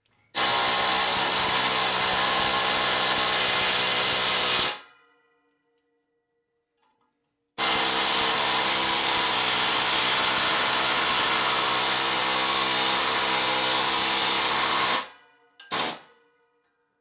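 Harbor Freight 92037 pneumatic air hammer with a chisel bit running at full speed, cutting into a sheet-metal plate clamped in a vise. It runs in two long bursts, about four seconds and then about seven seconds, with a brief squeeze of the trigger near the end.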